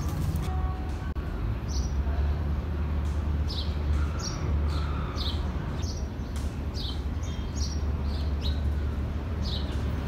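Birds chirping: short, high, falling chirps about once a second, irregularly spaced, over a steady low street rumble.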